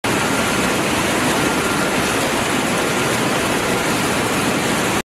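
Industrial belt conveyor and plant machinery running in a crushing-plant hall: a loud, steady rush of noise with a faint steady whine over the first couple of seconds. It cuts off abruptly near the end.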